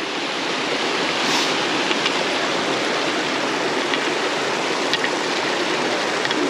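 Mountain stream of snowmelt water rushing steadily.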